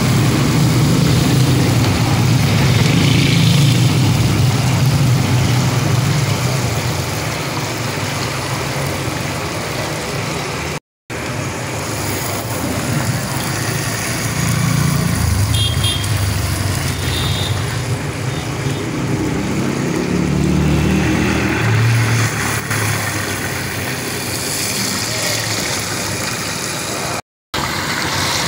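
Fish deep-frying in a large wok of hot oil, a steady sizzle over a low engine-like rumble. The sound cuts out for a moment twice.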